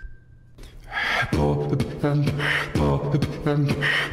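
Solo beatboxer starting his routine about a second in: deep kick thumps under a steady pitched bass line, with sharp snare-like hits roughly every 1.3 seconds and quick clicking hi-hats between them.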